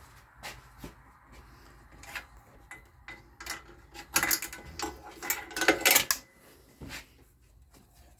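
Light clicks and clinks of parts and hand tools being handled during ignition coil work, with a cluster of louder clatters about four to six seconds in.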